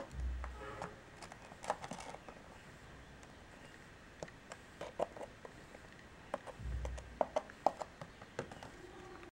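Faint scattered clicks and taps of a small plastic toy figure being handled and set down on a model diorama, with a couple of low thumps.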